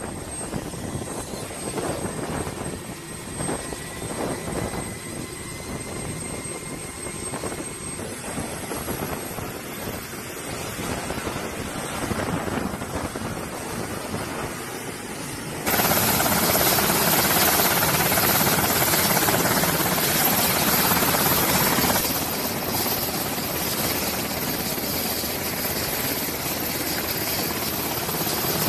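MH-60R Sea Hawk helicopters running on the ground with rotors turning: a steady whine and rotor noise. The sound jumps much louder about halfway through, then eases back a little.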